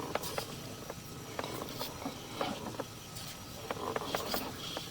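Sewer inspection camera's push cable being fed through the line, giving irregular light clicks and scrapes.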